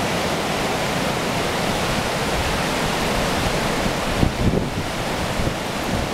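Floodwater rushing steadily over a low swayback bridge deck, a continuous churning river noise. About four seconds in, a few gusts of wind buffet the microphone.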